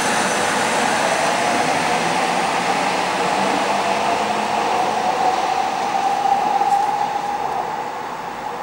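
Berlin U-Bahn small-profile train pulling out along the elevated track: a steady rumble of wheels on rails under a motor whine that slowly rises in pitch. The sound drops away about seven seconds in.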